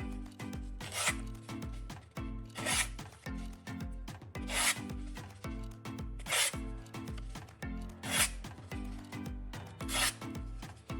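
A knife blade drawn across a sharpener in slow, even scraping strokes, about one every two seconds, over steady background music.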